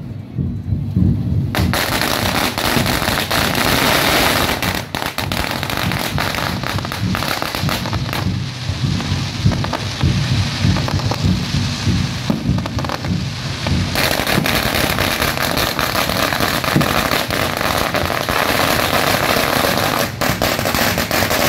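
Aerial fireworks and firecrackers going off in a dense, rapid crackle with sharp bangs mixed in. It starts about two seconds in, thins briefly around the middle, and carries on until near the end.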